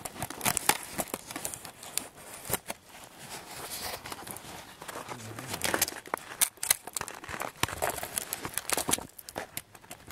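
Dry reeds, grass and sticks rustling and crackling close to the microphone as they are pushed through and handled, with irregular sharp snaps.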